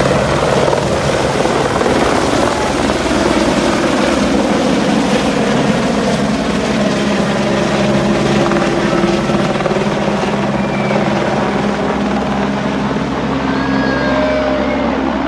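Single-engine medevac helicopter lifting off and climbing away overhead, its rotor and engine running loudly and steadily, easing slightly as it draws off near the end.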